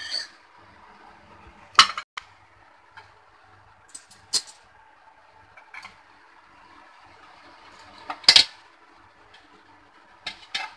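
Dishes and a spoon being handled: a scattering of short, sharp clicks and knocks, the loudest about two seconds and about eight seconds in.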